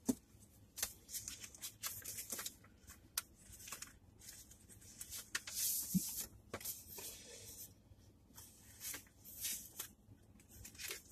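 Paper and packaging rustling as an 8x10 photo is taken out and handled, with scattered light clicks and taps.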